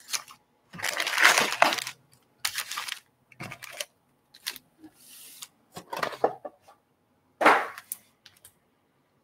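Baseball card packs in foil wrappers being pulled from their box and dropped onto stacks on a wooden table: a run of short crinkling and slapping sounds, the loudest about seven and a half seconds in.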